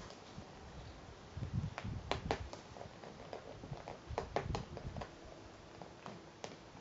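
Handling sounds from spreading sauce on pizza dough with a metal spoon and a plastic squeeze bottle. Scattered light clicks and soft thumps come in two clusters, about one and a half and four and a half seconds in.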